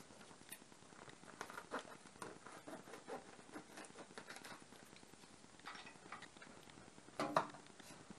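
Plastic packaging crinkling and crackling as a bag of powder is handled and cut open with scissors: faint scattered crackles and clicks, with a louder crackle about seven seconds in.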